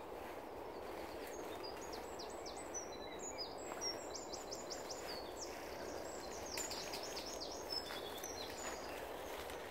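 Woodland birdsong: songbirds singing quick runs of high, downward-sweeping notes and short trills over a steady background noise.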